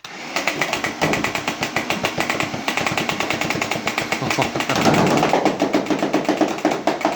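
Nerf Rival Prometheus motorized blaster firing full-auto: motor whir under a rapid, unbroken chatter of foam balls being fed and launched, many shots a second. It starts abruptly and keeps going.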